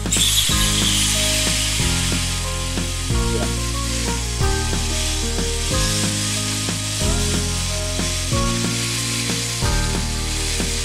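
New York strip steaks searing in a very hot cast iron skillet: a sudden jump to a loud, steady sizzle right at the start as a steak is laid in and pressed down, then continuous frying hiss.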